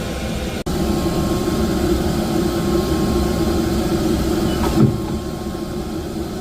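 Steady hum of a Haas SL20 CNC lathe that is powered up, with a short knock about five seconds in.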